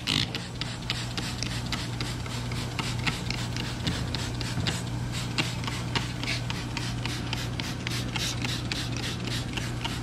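Hand trigger spray bottle squirting soapy water in a rapid, even series of short sprays, over a steady low hum: a soap-water leak check on an air-pressurized heater core and valve.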